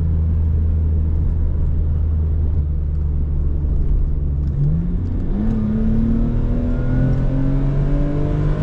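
Lexus IS300's 2JZ-GE straight-six engine heard from inside the cabin, running steady at low revs, then about four and a half seconds in accelerating hard, revs climbing with a quick dip at a gear change and rising again under full throttle.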